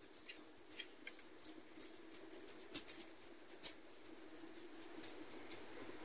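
Light, irregular clicking and ticking of fingers handling a metal easy-open sardine can as it is turned in the hand, about three clicks a second at first and sparser after about four seconds. A faint steady hum runs underneath.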